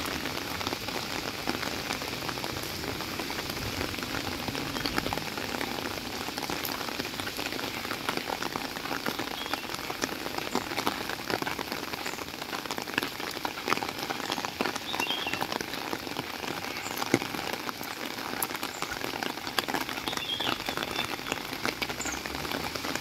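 Steady rain falling on a wet street and pavement, with many small raindrop taps scattered through it.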